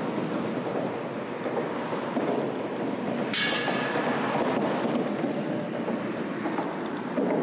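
Steady rush of wind and sea on the microphone. A little over three seconds in comes a brief whir that falls in pitch and fades within about a second: a fishing reel's spool spinning as line pays out on a cast.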